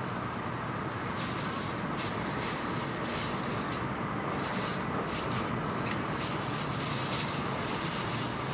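Shinkansen train running, heard from inside the passenger car: a steady rumble and rush of wheels and air, with short high hisses at uneven intervals.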